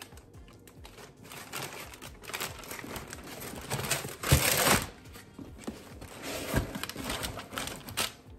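Tissue paper crinkling and rustling as a sneaker is handled in its box, with small knocks and a louder rustle about four seconds in.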